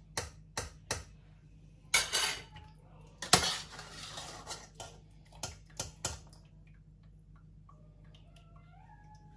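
Metal utensils and a cooking pot clinking and knocking as boiled potatoes are drained and mashed. Sharp knocks come in short runs, with two louder noisy stretches about two and three and a half seconds in.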